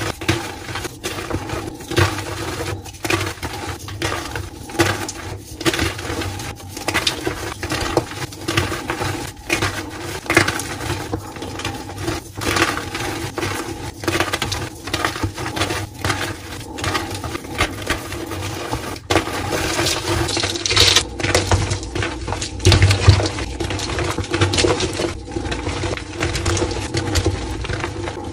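Blocks of dyed gym chalk crushed and crumbled by hand: irregular dry crunches and cracks several times a second as the blocks break apart and pieces and powder fall onto a pile of chalk.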